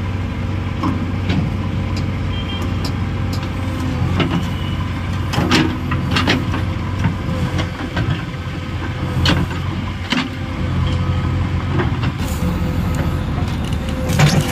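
JCB backhoe loader's diesel engine running steadily while its hydraulic boom and bucket work, with several sharp metal clanks from the boom and bucket, the loudest about five to six seconds in and again near the end.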